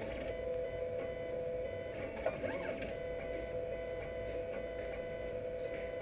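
3D printer running steadily as it prints, its stepper motors giving a constant whine, with brief rising and falling pitch sweeps a little over two seconds in.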